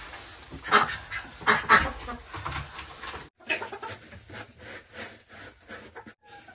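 Poultry calling in a coop: a run of loud honking squawks in the first three seconds, then a sudden drop to fainter scattered calls and scuffling in the litter.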